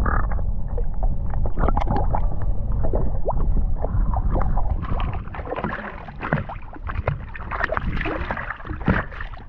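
Lake water sloshing and gurgling around a camera held at the waterline as it dips in and out of the surface, with irregular splashes and crackles over a low rumble.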